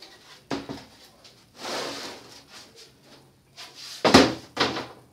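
Plastic rear cover of an LED TV being lifted off and set down: a knock, a longer scraping rustle of plastic, then two loud knocks near the end.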